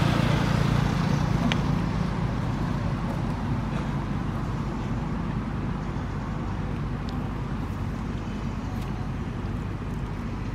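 Low hum of a motor vehicle's engine running in the background, easing over the first couple of seconds into a steady rumble, with a few faint clicks.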